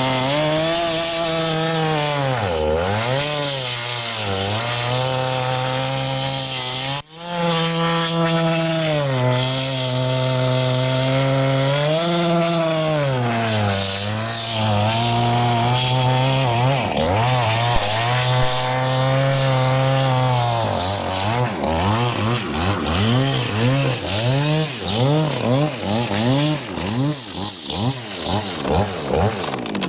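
Large Husqvarna chainsaw with a 42-inch bar cutting through a big log at full throttle. The engine note sags now and then as the bar loads up in the wood. In the last third the engine speed rises and falls quickly over and over.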